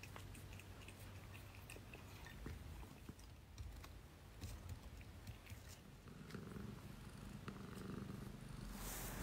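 A cat purring steadily, with small wet clicks of licking at a glass bowl in the first few seconds and a brief rustling hiss near the end.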